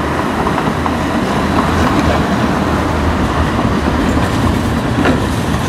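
Tram with a trailer car rolling past at close range: a steady rumble of steel wheels on the rails, with a few faint clicks from the wheels over the rails.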